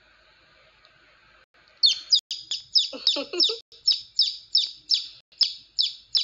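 Baby chick peeping loudly, a run of short high chirps at about three a second, starting about two seconds in.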